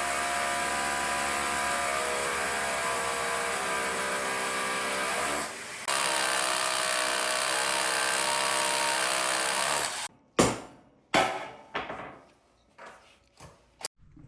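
Power drill boring anchor holes into the garage floor for a lift's posts. It runs in two steady stretches of about five and four seconds with a brief pause between, then stops, and a few sharp knocks follow.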